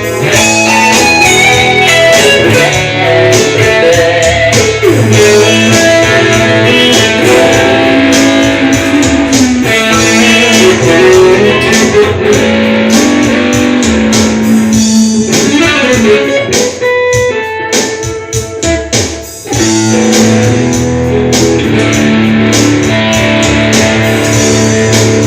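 Ibanez RGT320Z electric guitar improvising melodic lead lines over a clean, subtle backing track in A major. The low accompaniment thins out for a few seconds about two-thirds of the way through, then comes back in.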